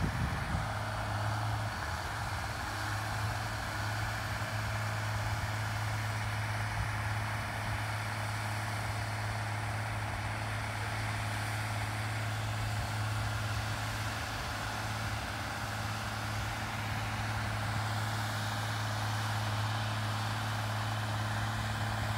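Heavy diesel construction machinery running steadily at an even, unchanging engine speed, a constant low hum.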